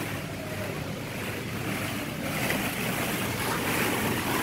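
Hollow plastic ball-pit balls rustling and clattering together as they are pushed about, a steady rustle that grows a little louder in the second half.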